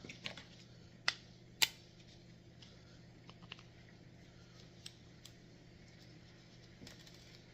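Light clicks and taps from handling the small plastic cover and parts of an RC crawler, with two sharper clicks about a second and a second and a half in, over a faint steady hum.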